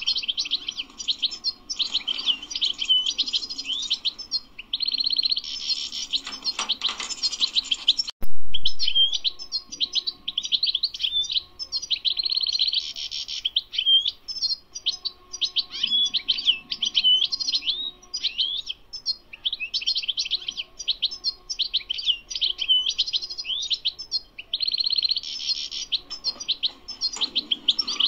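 European goldfinch singing without pause: fast, tinkling, twittering song with several denser stretches. About eight seconds in there is one sharp click and the song breaks for an instant before it carries on.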